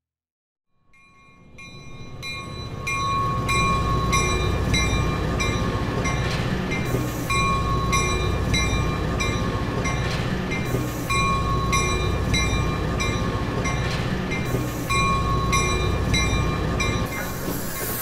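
Passenger train running through a snow-covered station with a steady low rumble, over a regular ding about twice a second.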